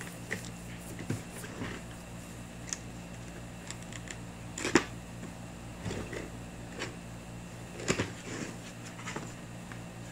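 Cardboard box being handled and opened by hand: scattered scrapes and taps on the cardboard, with a sharp snap about halfway through and another near the end, over a steady low hum.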